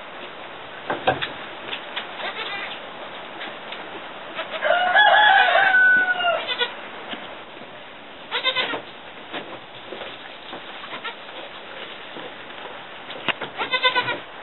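Newborn goat kids and their doe bleating in a straw-bedded stall: one longer held call of about two seconds around five seconds in, and short bleats near the middle and again at the end.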